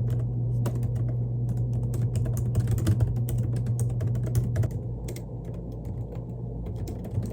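Rapid, irregular clicking of typing on a computer keyboard, over a steady low hum.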